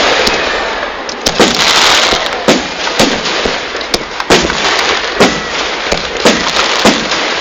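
Fireworks going off: a run of about ten sharp bangs, roughly one every half second to second, over a steady crackling hiss that is densest in the first two seconds.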